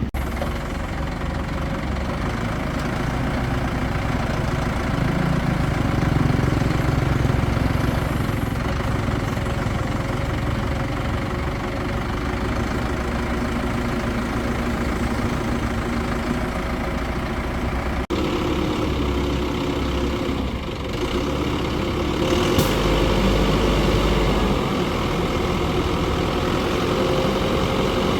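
Crane engine running steadily at a low idle, with a sudden change in its sound about two-thirds of the way through.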